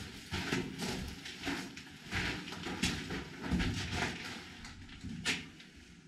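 Footsteps and scuffs on the shelter floor, irregular, about one or two steps a second.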